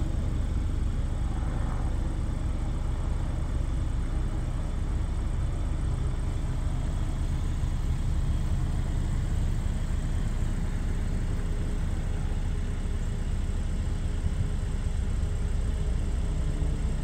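2022 Porsche Macan running steadily: a low, even engine hum with no revving.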